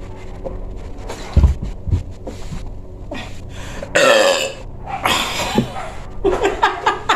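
A person belching after gulping carbonated Pepsi, with two deep belches about a second and a half in and a louder one about four seconds in, followed by shorter bursts near the end.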